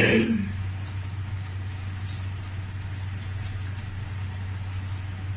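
Steady low mechanical hum, like a motor running, with a brief clatter right at the start.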